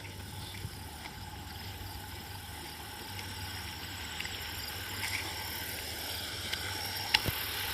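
Steady rushing of a fast-flowing creek, growing slightly louder toward the end, with one sharp click near the end.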